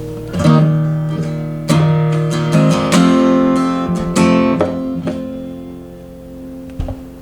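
Background music: strummed and plucked acoustic guitar, the chords ringing out and fading toward the end.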